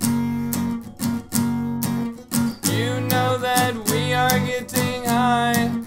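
Acoustic guitar strummed in a steady rhythm, with a man's voice singing a held, wavering line over it from about halfway through.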